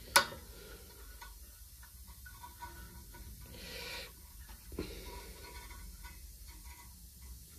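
Small clicks and light scraping of hands fitting the linkages back onto a small engine's carburettor: one sharp click near the start, faint ticks, and a soft scrape followed by a small knock a little past halfway.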